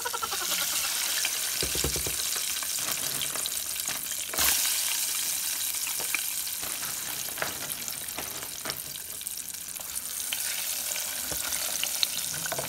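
French fries sizzling and crackling in hot oil in a small electric deep fryer, stirred with a plastic slotted spoon. The sizzle jumps up sharply at the start and holds steady, with a brief louder flare about four seconds in.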